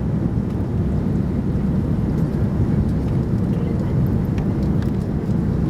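Steady low rumble of an Airbus A330-300 with Rolls-Royce Trent 700 engines during its landing.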